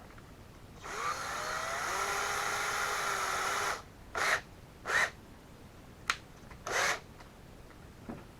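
DeWalt power drill running: one steady run of about three seconds whose whine rises in pitch as the motor spins up, then three short trigger bursts and a sharp click.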